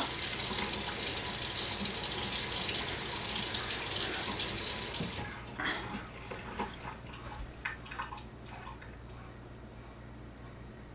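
Kitchen faucet running water into the sink and down the repaired drain to test it for leaks, shut off suddenly about halfway through, followed by a few light knocks.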